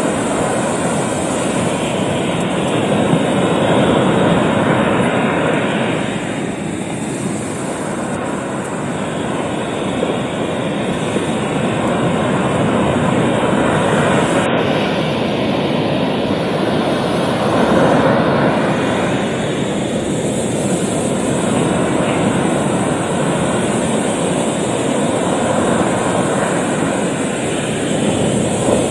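Ocean surf breaking and washing over a rocky shore: a loud, continuous rush that swells and eases as each wave comes in.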